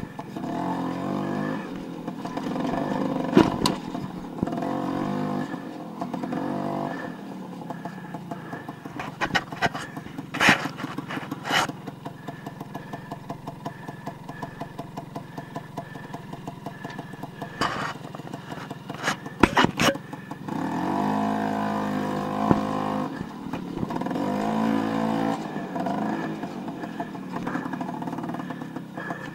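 Dirt bike engine revving up and down as it rides a forest trail, dropping to a quieter low-speed running through the middle before picking up again. Several sharp knocks break in along the way.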